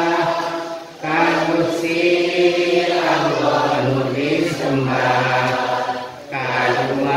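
Chanting of nadhom, devotional Islamic verse, in long drawn-out held notes, with two short breath breaks, about a second in and near the end.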